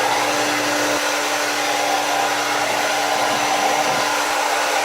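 Jinri 1875 W infrared ionic hair dryer running steadily on its high speed setting: an even rush of blown air over a constant motor hum.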